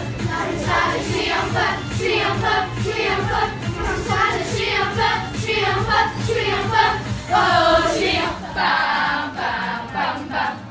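A group of children singing together loudly over backing music. About eight and a half seconds in it cuts abruptly to another group's singing.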